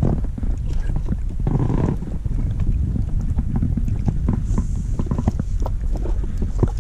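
Wind buffeting the microphone with a heavy low rumble, over many small splashes and knocks as a fish is netted at the side of an inflatable boat.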